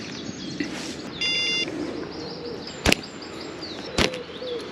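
Birds singing in the background, with a short electronic beep about a second in, then two sharp swishes from a throwing stick flinging bait out over the water.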